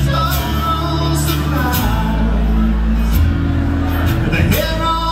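Live band playing: drums with cymbal hits, electric bass, acoustic and electric guitars.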